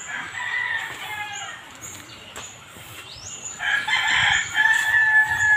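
A rooster crowing: one long, loud call begins about two-thirds of the way in and is still going at the end, with fainter chicken calls in the first second.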